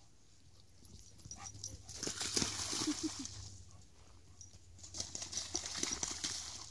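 A black German Shepherd splashing as it runs through shallow lake water, in two spells, with a few short whimpers during the first.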